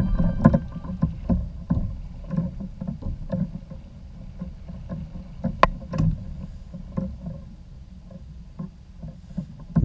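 Water lapping against a plastic fishing kayak's hull, with irregular knocks and clicks as a landed redfish and gear are handled on the deck. The sharpest click comes about halfway through.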